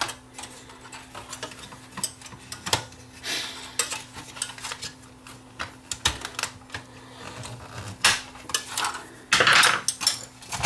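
Plastic retaining clips and metal chassis parts of an opened JVC HR-S7200 S-VHS VCR clicking and clattering under the hands as the tuner board is unclipped: scattered sharp clicks and taps, with a brief scrape about nine seconds in.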